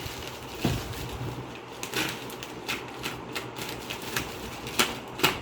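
A parcel being handled by hand: scattered clicks, taps and rustles of packaging, with a heavier knock about a second in and a sharper tap near the end.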